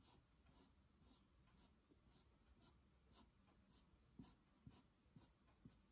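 Black permanent marker drawing short strokes on paper: faint, even scratches about two a second.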